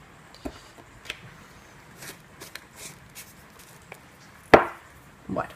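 A thin plastic craft stencil being handled and lifted off a craft mat: a few light clicks and taps, then two louder plastic knocks and rustles near the end.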